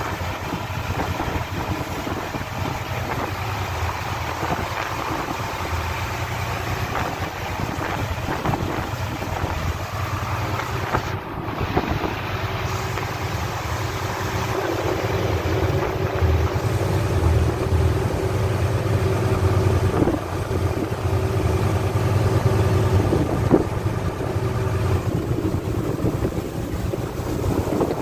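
Storm wind buffeting the microphone over a rough sea, with the steady low hum of the fishing boat's engine underneath.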